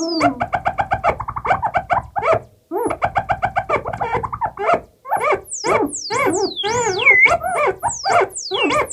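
Self-generating analog Moogerfooger patch (MF-107 FreqBox oscillator through an MF-101 lowpass filter and MF-104M analog delay, modulated by a CP-251 control processor) making animal-like yelps and chirps. It opens with fast repeated blips, breaks off briefly twice, then turns to high whistling sweeps that fall in pitch over the yelps.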